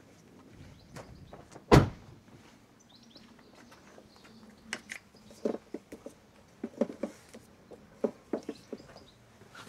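A car door shuts once with a single sharp knock about two seconds in, the loudest sound. Later a run of light clicks and knocks follows as a Hypervolt wall charger's tethered cable is unwound and its Type 2 connector lifted from the holster, with faint bird chirps behind.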